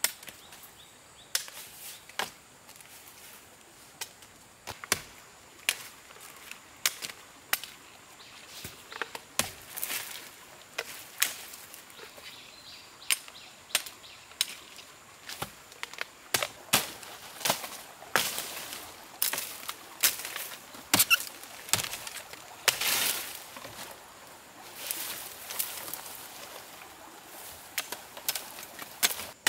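Irregular series of sharp chopping strikes, roughly one or two a second, coming faster and louder in the second half.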